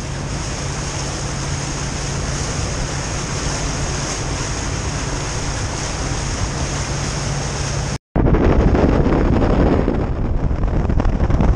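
A boat's engine running at speed, a steady low hum under the rush of water past the hull and wind on the microphone. About eight seconds in the sound cuts out for a moment and comes back louder, with heavy low wind buffeting.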